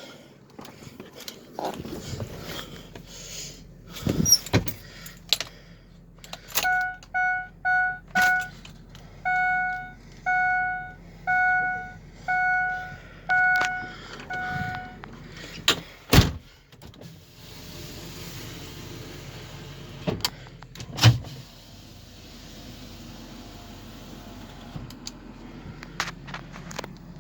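Inside a 2004 Ford E350 van before starting: scattered clicks and thunks of key and controls, then the dashboard warning chime beeping about a dozen times over some eight seconds. A sharp click follows, and from about two-thirds of the way in a steady low hum runs.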